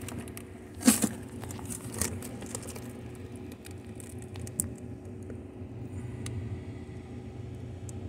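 Whirlpool refrigerator-freezer running with a steady low hum and a faint steady tone. A few sharp clicks and knocks sound over it, the loudest about a second in.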